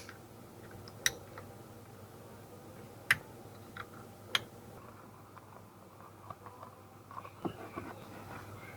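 Sharp clicks and knocks of hand tools and parts being handled, with a few louder ones in the first half and a run of lighter ticks near the end.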